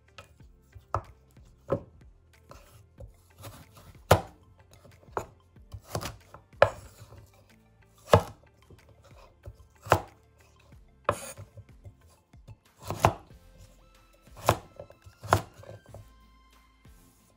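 Steel cleaver rough-chopping a peeled taro root into chunks on a wooden cutting board: sharp knocks of the blade through the root onto the board, about one a second at an uneven pace.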